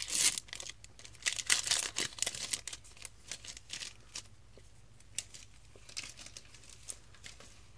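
Foil booster-pack wrapper crinkling and tearing as it is ripped open, loudest in the first three seconds. Softer rustling and light clicks of trading cards being handled follow.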